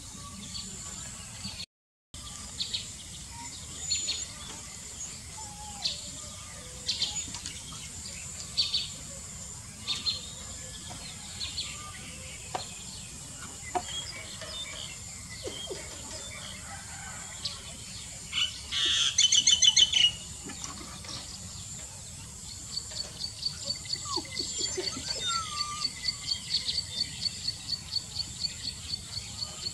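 Birds chirping and calling: scattered short high chirps, then a loud rapid trill at about two-thirds of the way in. Near the end comes a fast, even run of high chirps, about four a second.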